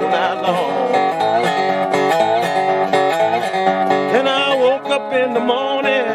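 Background music led by guitar, with notes that slide up and down.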